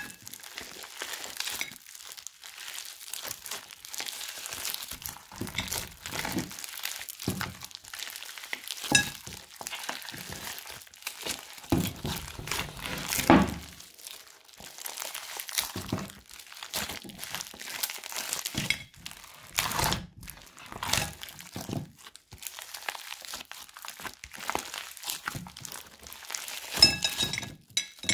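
Thick slime mixed with clay being squeezed, stretched and kneaded by hand: a continuous irregular crackling, with several louder pops scattered through.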